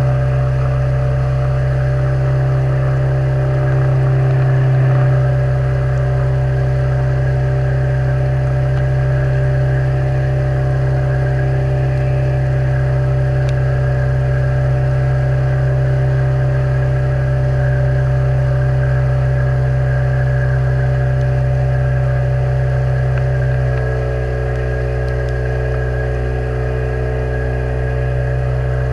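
Outboard motor of a river boat running at a steady cruising speed, easing off slightly in pitch and level near the end.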